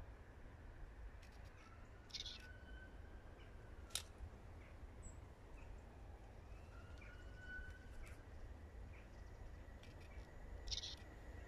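Quiet trackside ambience with a low rumble, a bird calling twice with a short harsh call, about two seconds in and again near the end, and one sharp click about four seconds in. A faint steady high tone begins near the end.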